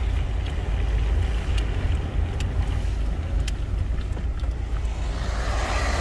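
Steady low road and engine rumble heard inside a moving car's cabin, with a few faint ticks. Near the end a hiss grows louder.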